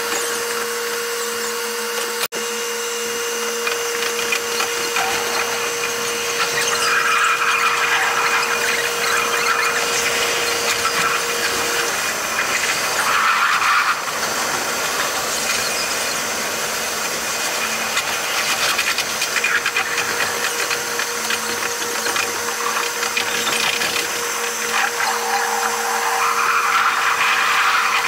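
Train cab sound played at eight times speed: the train's running noise turned into a continuous high-pitched whine and hiss with steady tones, swelling and easing in places, with a sharp brief break about two seconds in.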